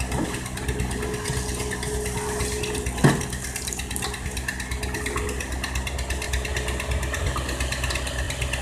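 Excavator's diesel engine running steadily, with a single sharp knock about three seconds in.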